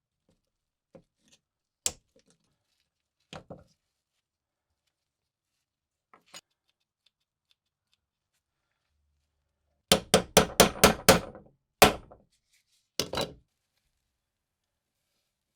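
Hand hammer tapping on metal work: a few scattered light knocks, then a quick run of about seven sharp strikes about two-thirds of the way in, followed by one more and a pair of strikes near the end.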